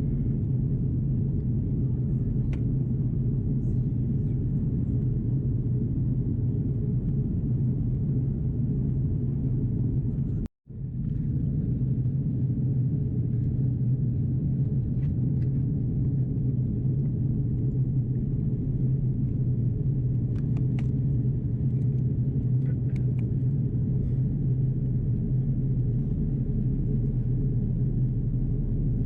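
Steady low rumble of an Airbus A330-343's Rolls-Royce Trent 700 engines and airflow, heard inside the passenger cabin during descent. The sound cuts out for an instant about ten seconds in.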